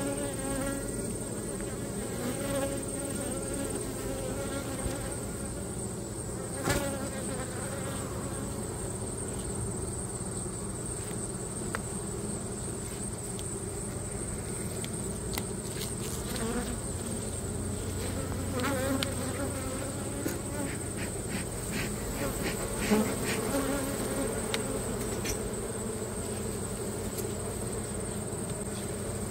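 Honeybee colony buzzing steadily around an open hive during a frame inspection, with a few sharp clicks and knocks, one about a third of the way in and a cluster in the second half.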